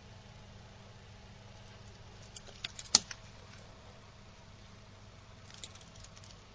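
Handling noise from a steel watch phone held and moved by hand: a few small clicks and knocks, the loudest a sharp click about three seconds in and a few lighter ones near the end, over a steady low electrical hum and hiss.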